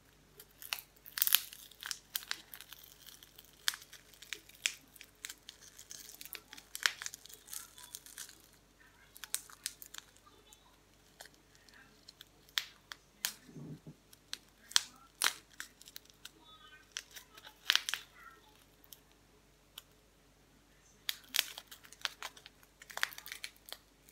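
A crinkly gold wrapper being picked at and torn open by fingers: irregular crackling and tearing in bursts throughout.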